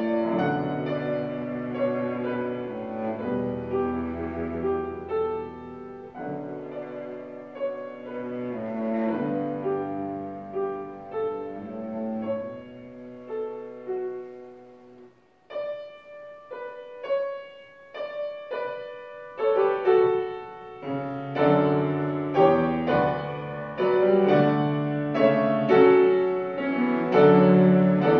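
Cello and grand piano playing a classical duo. Sustained bowed cello lines run over piano accompaniment; about halfway through the music thins to a few short, separate notes for several seconds before the fuller texture returns.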